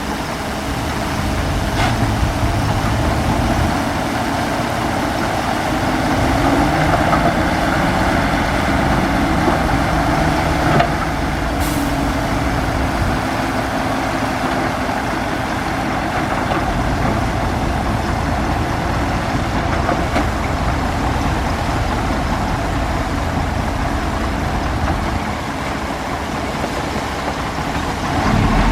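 Bulldozer's diesel engine running steadily under load, with a single short knock about eleven seconds in.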